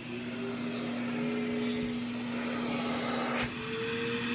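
Pet grooming vacuum motor running with a steady hum over a hiss of suction airflow; its whine steps up slightly in pitch about three and a half seconds in.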